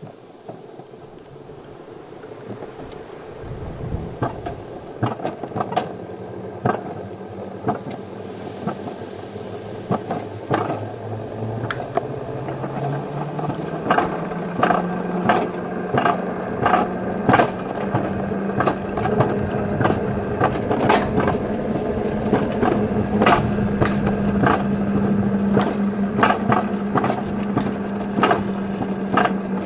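Wiegand alpine coaster sled running down its raised tubular steel rails, picking up speed: a low rolling hum rises in pitch and grows louder, with frequent sharp clacks that come thicker as it goes faster.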